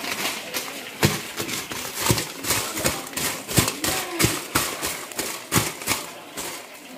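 Metal strainer ladle knocking and scraping against a perforated aluminium colander as fried pieces are tipped in and pushed about: irregular sharp clanks, about two or three a second, over a steady hiss.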